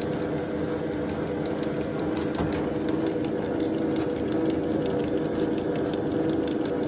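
Milling machine running steadily as its cutter mills a flute into a screwdriver handle: a constant motor hum with fast fine ticking of the cut.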